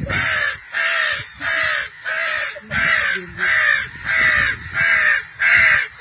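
Crow caws: a loud, evenly paced series of about nine calls, roughly one and a half a second.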